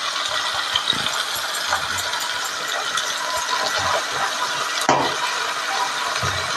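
Vegetables frying in hot oil in an aluminium kadai, a steady sizzling hiss, with a few light clinks of a steel spatula against the pan, the sharpest about five seconds in.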